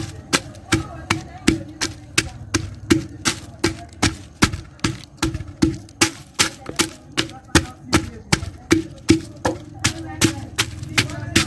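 Pestle pounding garlic and ginger in a mortar: steady, evenly spaced strikes, about three a second, crushing them for their juice.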